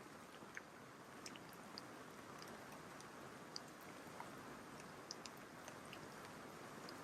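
Light spring rain falling steadily and faintly, with scattered drops ticking sharply at irregular moments.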